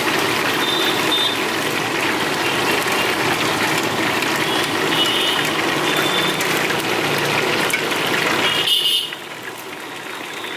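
Steady frying noise of chicken pieces cooking in an iron karahi over a gas burner. The noise drops suddenly to a lower level about two seconds before the end.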